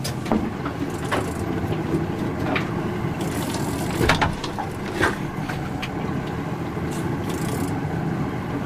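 A boat's engine running steadily, with a few sharp knocks and clicks scattered over it.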